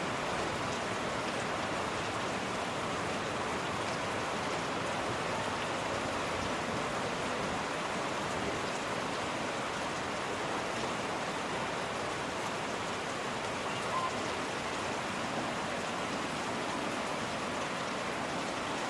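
Steady rain falling, an even, unbroken hiss of drops. One brief faint tone sounds about three-quarters of the way through.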